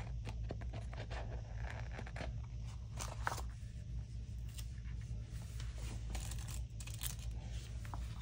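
Scissors cutting through a sticker and its paper backing, with irregular short snips and paper rustling over a steady low hum.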